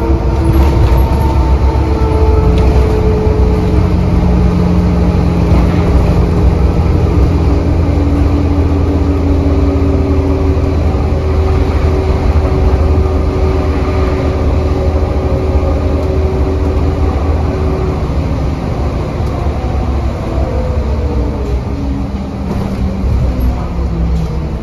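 2001 Nova LFS city bus with its Cummins ISC diesel engine, heard from inside the cabin while driving at speed: a steady low drone with road noise and several whining tones. The whining tones drop in pitch over the last few seconds.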